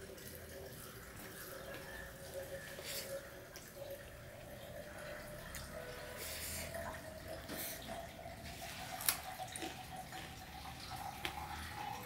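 A person eating rice and fish curry by hand: fingers mixing rice on a steel plate, then chewing and mouth sounds, with a few sharp clicks, the loudest about nine seconds in.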